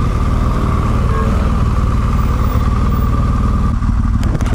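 BMW R1200GS Adventure's boxer-twin engine running steadily at low revs in slow city traffic, a continuous low throb, with a brief sharp click near the end.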